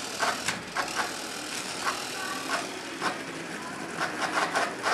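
Small irregular clicks and taps as hands handle the wires of a toy harvester model, over a steady hiss.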